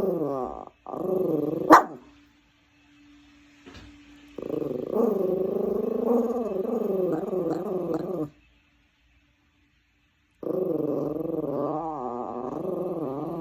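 A dog growling and grumbling in long, wavering, drawn-out bouts: a low protest 'song' against the vacuum cleaner. Two short growls open it, then two long ones separated by a few seconds' pause.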